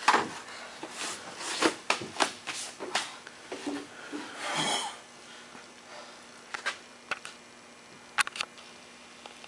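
Scattered knocks, scuffs and rustles of a person moving about and sitting down on wooden steps, busiest in the first half and sparser later, over a faint steady hum.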